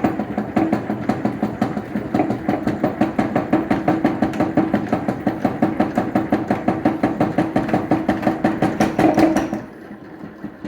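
Honey extractor spinning honeycomb frames: a steady motor-like hum with a rapid rhythmic knocking, about four beats a second. The knocking is the sign of an unbalanced load of only three frames. The noise drops off sharply near the end.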